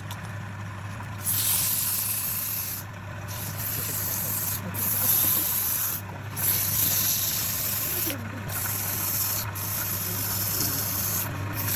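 Wood being worked on a running lathe: a steady motor hum under hissing passes against the spinning wood, broken by short pauses every one to two seconds.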